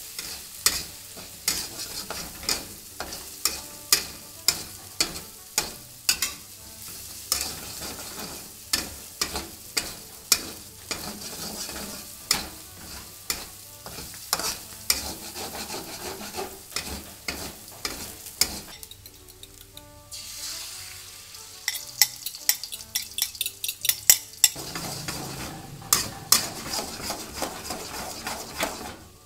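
Stir-frying vegetables in an aluminium wok: a metal spatula scrapes and knocks against the wok about one and a half times a second over the sizzle of hot oil. The strokes pause briefly about two-thirds of the way through, then resume as beaten eggs are scrambled in the pan near the end.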